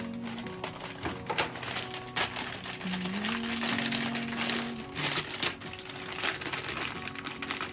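Plastic bag of broccoli crinkling and rustling in irregular crackles as it is handled and tipped out, with background music playing.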